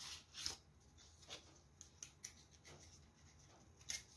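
Hands handling cosmetic products and their packaging: several short, faint rustles and light taps, the strongest near the start and just before the end.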